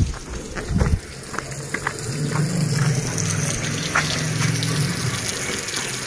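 Water from a leaking rooftop plastic water tank falling in a steady stream and splashing onto a concrete floor.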